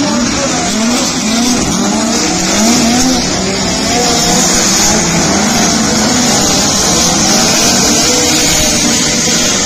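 Race cars running at speed on the track, several engines at once, their notes repeatedly rising and falling over a steady rushing hiss.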